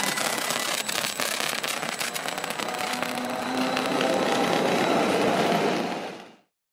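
Stadler-built Rhaetian Railway ABe 8/12 "Allegra" electric railcar running past on the station track: steady running and wheel noise with many sharp crackling clicks, fading out to silence shortly before the end.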